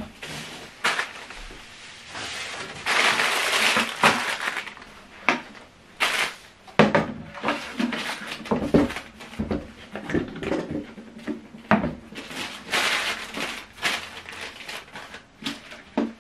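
Plastic packaging rustling and crinkling as it is pulled away and handled, in irregular spells, with scattered knocks and taps of items being moved on a table.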